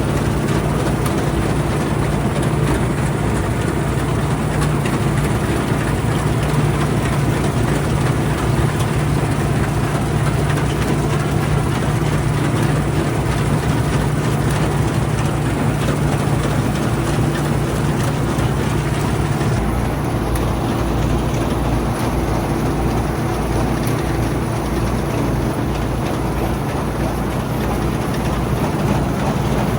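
Old Bizon combine harvester running steadily, a constant engine drone with a low hum and dense mechanical noise from its working machinery. The tone shifts slightly about two-thirds of the way through.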